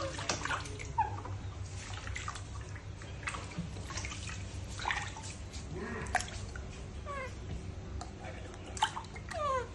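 Water splashing and sloshing in a plastic tub as baby monkeys are washed by hand, with a few short, high squeaks from the baby monkeys falling in pitch, one about a second in and two near the end.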